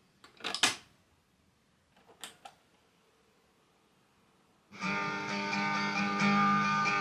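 Cassette door of an ORION SCR-B9 CD boombox clicking shut, then a soft click of its tape play key a little over two seconds in. A little under five seconds in, plucked guitar music starts playing from a normal-position cassette through the boombox.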